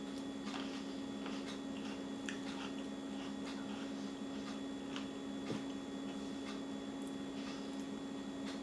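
Faint eating sounds from someone chewing cut fruit: scattered soft clicks and wet squishes, over a steady low hum.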